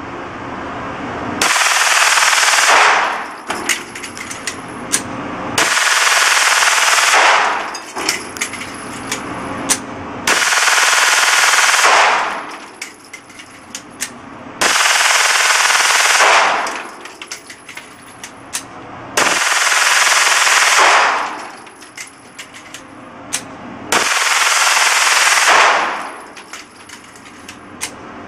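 9mm Glock 19 converted with an auto sear firing full-auto at a cyclic rate of about 1,200 rounds a minute: six bursts of about a second and a half each, roughly every four and a half seconds, with scattered clinks between bursts.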